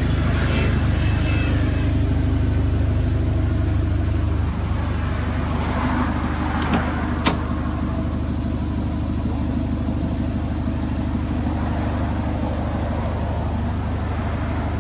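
Subaru Impreza WRX STI (GRB) turbocharged flat-four idling through an aftermarket exhaust, a steady low rumble. It gets slightly quieter about four and a half seconds in, and a single sharp click sounds about seven seconds in.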